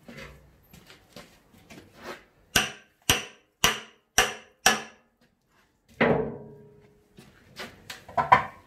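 Steel tyre lever knocking against a rusty steel tractor wheel rim while working the old tyre's bead off. Five sharp metallic knocks come about two a second, then a heavier clang rings on for about a second, then a few lighter knocks.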